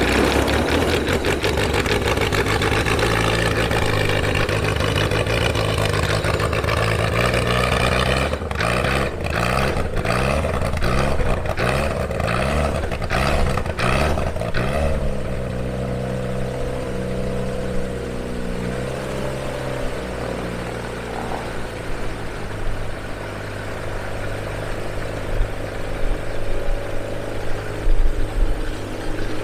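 Viking aircraft engine running on its first start, driving the propeller. It runs hard at first, then its speed rises and falls unevenly for several seconds, and about halfway through it settles to a quieter, steady idle.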